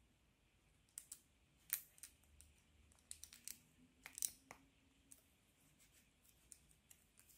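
Small clicks and taps of 3D-printed plastic puzzle pieces being handled and pushed together by hand, coming in a few quick clusters between quiet stretches.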